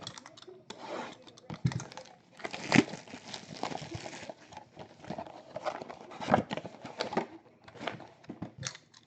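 2019 Topps Finest baseball card packs being torn open by hand, the wrappers crinkling and crackling in quick, irregular bursts.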